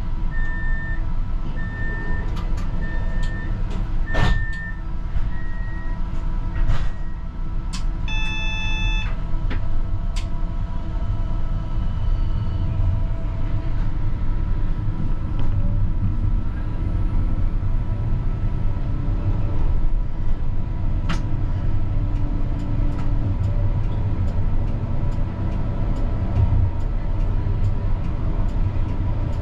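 CAF Urbos 100 tram at a stop: door-warning beeps about once a second for a few seconds, a sharp clunk, and about eight seconds in a short tone of several pitches. The tram then pulls away, its wheels and motors rumbling steadily on the track.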